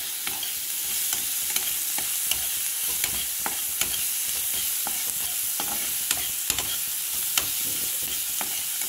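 Chopped onions sizzling in mustard oil in a black kadai, stirred with a spatula that clicks and scrapes against the pan a couple of times a second.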